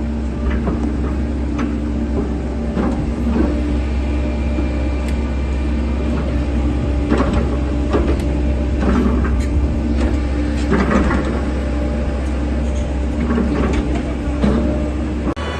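Wheel excavator's diesel engine running steadily, with irregular knocks and clanks from the machine working. The sound changes abruptly near the end.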